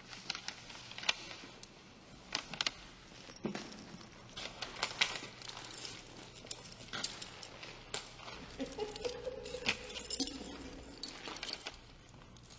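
Keys and metal handcuffs clinking and jangling as the cuffs are unlocked and taken off: a scatter of sharp metallic clicks.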